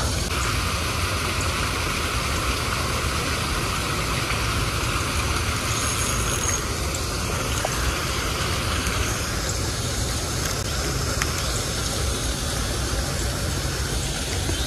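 Steady rush of running water over a low spillway, with a low rumble underneath.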